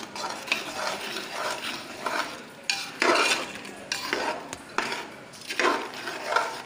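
A steel spoon stirring thick chicken gravy in an aluminium pressure cooker, mixing in ground coconut paste: a run of uneven scraping strokes against the pot, one or two a second.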